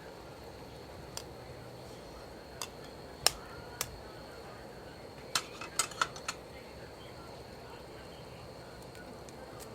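Scattered light clicks and taps over a steady faint background with a thin high hum; the sharpest comes a little over three seconds in, and a quick run of them about five to six seconds in.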